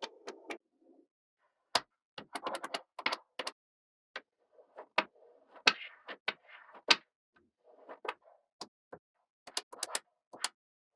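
Small magnetic balls clicking as they snap together, in irregular sharp clicks, some in quick clusters of three or four, with softer rolling and scraping of the balls between the clicks.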